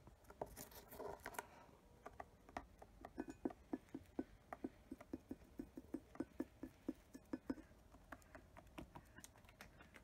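Cockatiel pecking seed from a small white dish: a run of quick, light beak clicks, about four a second, for several seconds, then stopping.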